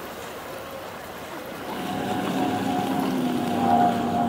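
Water sloshing close to the microphone, then from about two seconds in the steady drone of a boat engine on the river comes up and holds at a constant pitch, getting louder.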